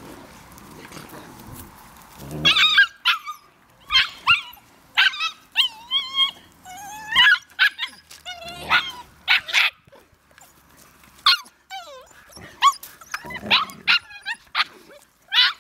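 Puppies yapping and squealing during rough play with an adult dog. After a quieter first two seconds comes a quick run of short, high yelps, many sliding up or down in pitch.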